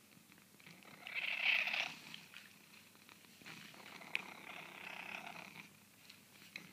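Domestic cat purring steadily close to the microphone while asking for food. Two louder rustling, noisy sounds come over it, one about a second in and another from about three and a half to five and a half seconds in.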